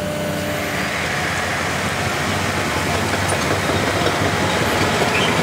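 Speed dozer working, its engine running steadily under load as the blade pushes crushed concrete. A rushing, grinding noise from the moving material builds over the first second or two and stays steady.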